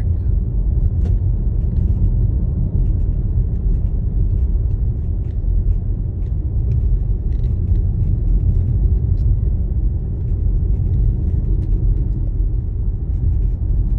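Steady low rumble of a car driving along a street, heard from inside the cabin: tyre and engine noise.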